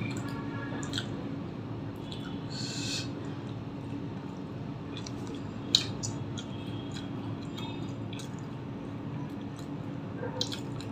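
Eating by hand: paratha torn and dipped in wet egg curry, with soft squishes, chewing and scattered mouth and finger clicks, one sharp click a little before halfway. A steady low hum runs underneath.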